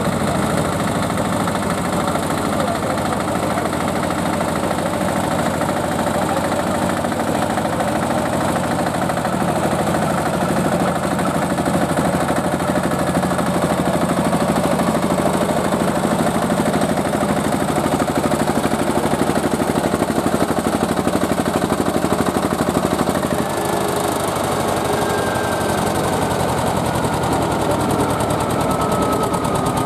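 Small old diesel tractor engine of the 20 hp class running hard under load while dragging a pulling sled, with an even, rapid firing beat. Over the last several seconds a thin whine falls steadily in pitch.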